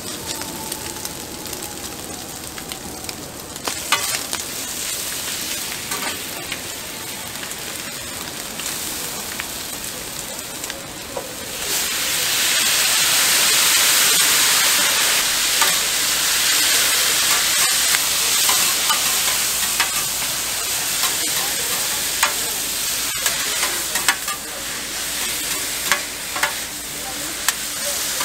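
Pork intestines and shredded cabbage sizzling on a hot flat griddle, stirred and scraped with metal spatulas that click against the plate. About twelve seconds in, the sizzle jumps to a loud hiss as a burst of steam rises, then eases back under quicker spatula clicks.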